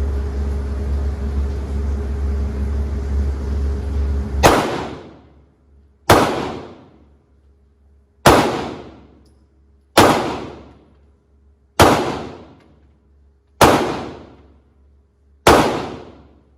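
Glock 48 9mm pistol firing 115-grain rounds: seven single shots about 1.5 to 2 seconds apart, each ringing off in about a second of echo. The first shot comes after a few seconds of steady low hum.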